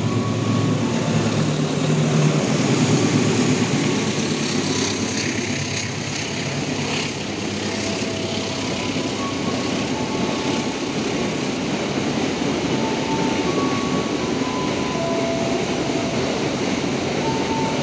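Container freight train wagons rolling past, a steady rumble and clatter of wheels on the rails, with short faint high tones now and then. A low drone dies away about a second in.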